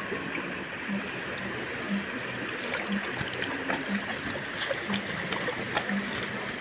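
Water trickling and dripping as a cast net is hauled up out of shallow floodwater, with small splashes and drips growing more frequent from about three seconds in. A soft low pulse repeats about once a second underneath.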